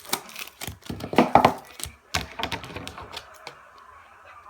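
A plastic bottle's wrapper being peeled off, with irregular crinkling and clicking of the plastic and a louder crinkle about a second in.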